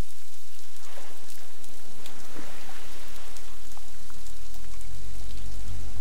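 Underwater hydrophone recording near southern right whales: a crackling, hissing background with many scattered sharp clicks, and a low rumble that builds from about two seconds in.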